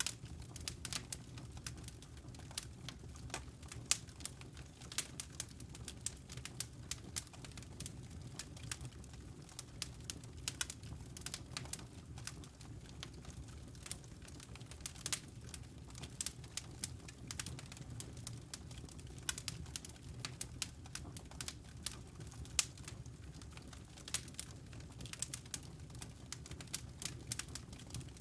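Wood fire in a fireplace crackling, with dense irregular pops and snaps over a low steady rumble.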